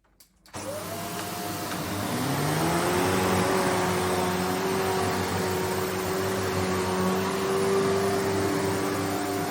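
Shark Stratos XL corded upright vacuum cleaner switched on about half a second in, its motor whine rising in pitch over the next couple of seconds and then running steadily.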